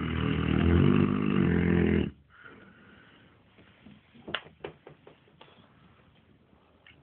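St Bernard giving one loud, rattling snore lasting about two seconds, then a few faint clicks about four to five seconds in.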